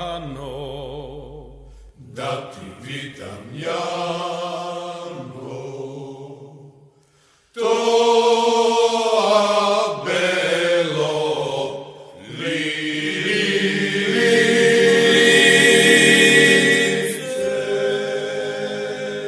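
Male choir singing a Macedonian folk song in a tamburica orchestra arrangement, in phrases with short breaks. There is a brief silence about seven seconds in, then a louder passage.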